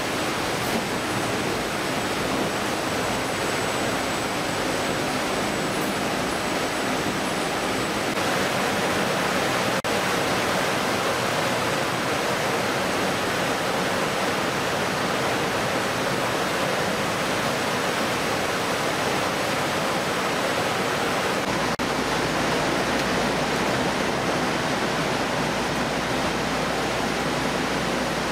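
Steady rushing noise of a fish-processing line: water spraying and running through the stainless troughs and conveyors, with machinery running underneath and a faint steady high whine.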